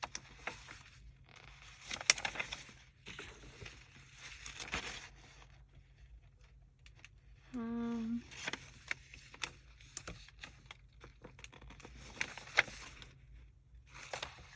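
Paper being handled, rustling and crinkling in several spells with small sharp clicks. A short voiced hum sounds about halfway through.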